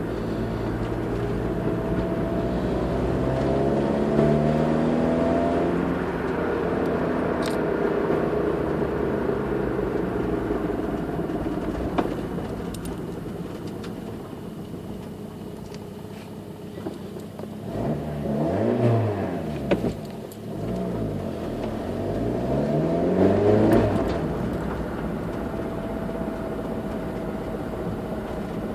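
Peugeot 306 1.4i four-cylinder petrol engine revved up and let fall back toward idle several times: one slow rev early on that winds down over several seconds, then quick blips later. Each throttle release is the moment when the owner hears a strange noise.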